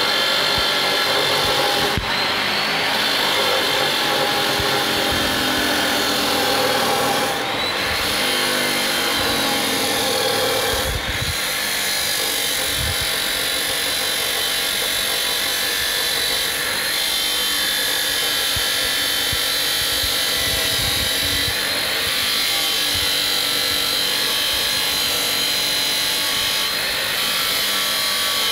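Hitachi abrasive cut-off saw grinding through a square hollow steel tube: the motor's steady high whine over the rasp of the wheel biting the steel. The whine rises briefly a few times as the cut goes on.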